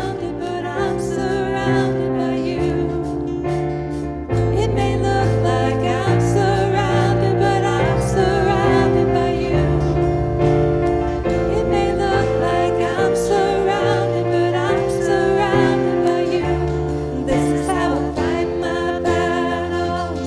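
Live worship band playing a contemporary Christian song, with keyboard and bass under wavering sung notes and a steady beat.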